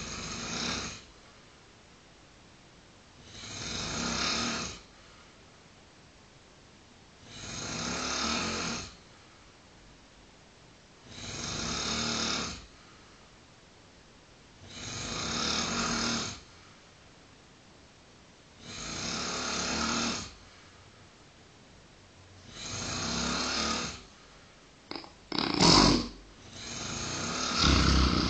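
Man snoring in his sleep, one snore on each breath in, about every four seconds, each lasting over a second. Near the end the snoring turns louder and more ragged.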